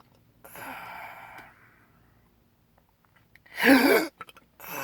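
A man's soft breathy exhale, then about three and a half seconds in one loud, short voiced hiccup, the spasm of his chronic hiccups, with heavy breathing starting again just after.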